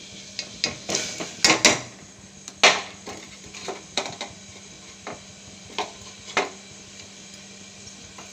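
Lumps of jaggery dropped into an aluminium pot, with a steel spoon knocking against the pot: about a dozen irregular sharp knocks over the first six seconds, loudest about two and a half seconds in.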